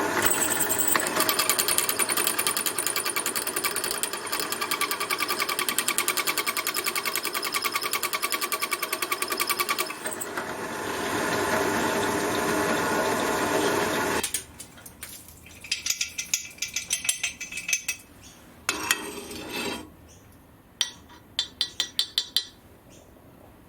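Drill press running and drilling a small hole in a metal gas-jet fitting: a steady machine noise with a fast even rattle for about fourteen seconds, then it stops and a series of short bursts follows.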